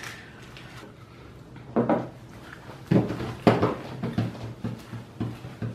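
A few light knocks and handling sounds as a plastic jelly bean canister is handled and set down on a wooden table. These are followed by a run of short, muffled sounds, about two or three a second.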